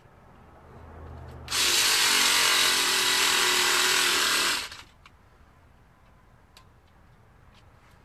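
Battery-powered pumpkin-carving saw with a reciprocating knife bit, running in one burst of about three seconds. It starts about a second and a half in and cuts off sharply.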